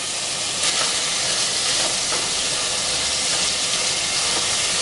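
Raw ground pork frying in hot oil with softened onions in a stainless steel pot: a steady sizzling hiss that grows a little louder about a second in.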